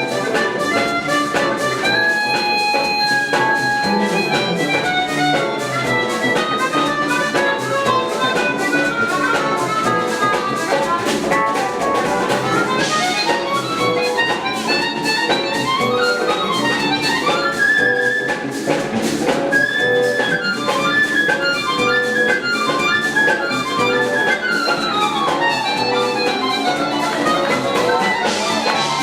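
Jazz-fusion band playing live at full volume: a horn section, keyboards and drum kit together, with a steady beat and busy melodic lines throughout.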